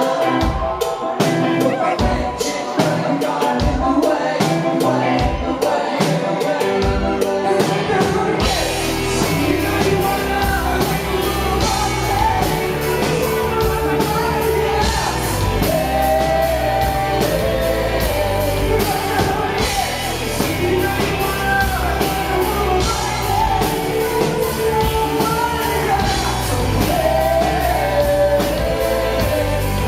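Live pop-rock band playing with a singer, recorded from the audience. For about the first eight seconds the band plays short, spaced stabs with gaps between them, then the full band comes in with steady bass and drums under the vocals.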